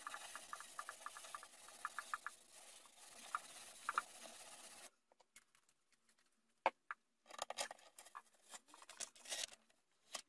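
Hands rubbing hard over the back of a paper print on plywood for an image transfer onto the wood: a quick run of short, dry rubbing strokes over a steady hiss. After about five seconds the hiss cuts out, leaving scattered light clicks and paper rustles as the sheet is handled and peeled back near the end.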